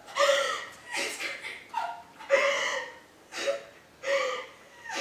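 A woman's voice in short, gasping cries without words, about one a second, each bending in pitch.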